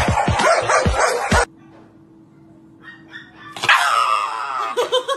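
Background music with a steady beat cuts off about a second and a half in. After a quiet gap, a black-and-tan Shiba Inu being held by vet staff gives a loud, falling scream near the end, then a string of short cries, in distress at being handled.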